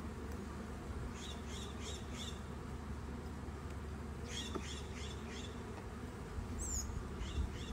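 Steady buzzing drone of many honey bees flying around an opened hive. A bird calls over it in three short runs of quick high chirps.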